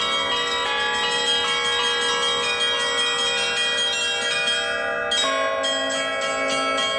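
Russian Orthodox church bells rung together in a peal: the small bells strike quickly over the ringing of the middle bells. A deeper bell comes in about five seconds in.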